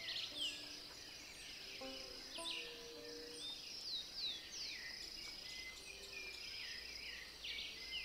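Outdoor chorus of birds calling with many quick downward-sweeping chirps, over a steady high-pitched insect hum.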